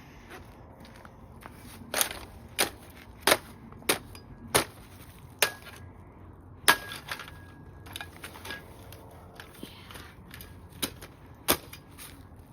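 Hard blows smashing an old alarm clock: about seven strikes in quick succession, a pause, then two more near the end.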